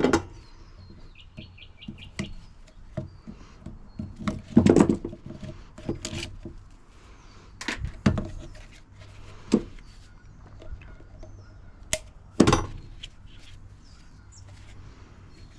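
Scattered knocks, clicks and clunks of scrap washing-machine parts being handled and set down, the heaviest thuds near the middle and about three-quarters through. A few faint bird chirps sound about a second in.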